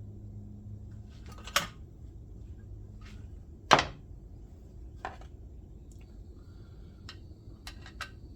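Scattered knocks and clicks of hand tools and screws being handled and set down, the loudest a sharp knock about four seconds in, then a quick run of light clicks near the end.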